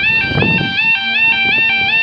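Level crossing audible warning alarm: an electronic two-tone yelp that steps up and down in pitch about four times a second, sounding while the barriers lower for an approaching train. Low rumbling handling or wind noise lies underneath.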